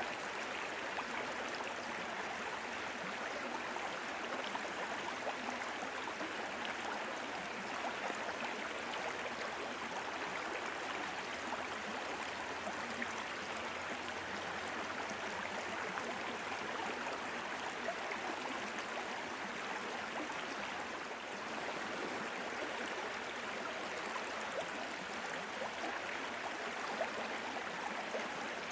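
Steady rush of flowing water with a fine bubbling crackle in it, even in level throughout.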